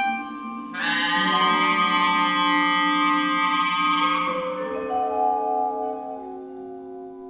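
Contemporary chamber music: about a second in, a bright chord is struck, led by vibraphone, and rings on and slowly dies away over held lower notes.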